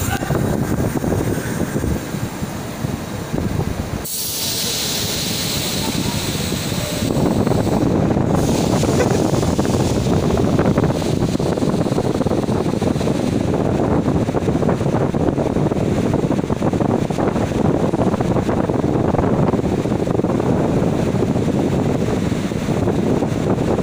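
Inspection train standing at the platform with a steady mechanical rumble, a hiss of air from about four to seven seconds in, and voices in the background.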